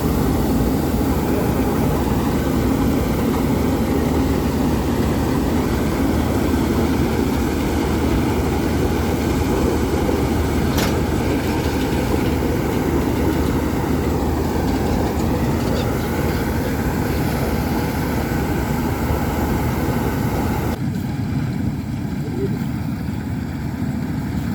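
Engine of a rice harvesting machine running steadily, a low hum with a dense mechanical rattle. About 21 seconds in, the higher part of the sound drops away suddenly, leaving a duller engine hum.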